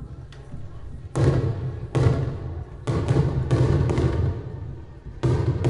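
Fireworks exploding in a rapid series of about seven bangs, each one trailing off in a low rumble, several coming close together in the middle.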